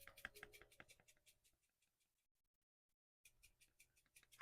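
Faint, quick ticking of red pepper flakes being shaken from a spice shaker onto the lasagna, fading out after about a second and a half into near silence.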